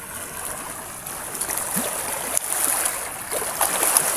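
Small, gentle sea waves washing along a shallow shoreline: a steady rush of water noise that swells and eases.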